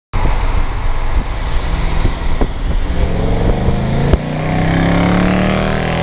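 A 2017 Dodge Charger R/T's 5.7-litre Hemi V8 on its stock factory exhaust, loud and accelerating hard. Its note climbs from about three seconds in, with a sharp crack about four seconds in, then climbs and holds.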